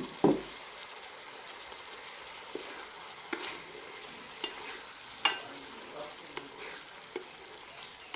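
Chicken chana curry sizzling in a pot while a spoon stirs it, with scattered clicks of the spoon against the pot, the loudest just after the start and about five seconds in.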